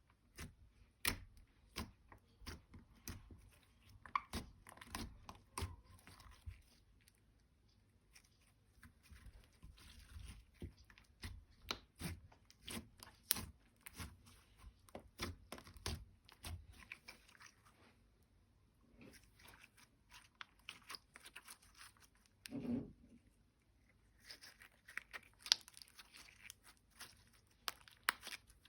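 Slime being worked by hand, squished and stretched, with a dense, irregular run of sticky clicks and crackling pops. There is one louder, lower squelch a little over three-quarters of the way through.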